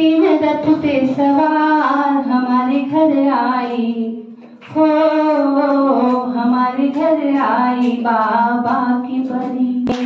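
A woman's voice singing a slow song in long held notes, with a short break about four seconds in. A sharp click near the end.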